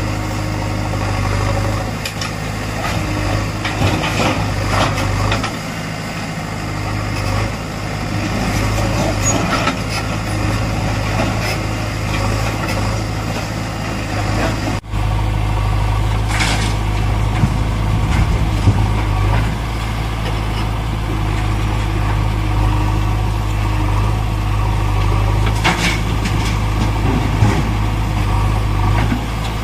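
Vehicle engine idling steadily, with a brief break about halfway through where the sound cuts and resumes, and a few short rattles on top.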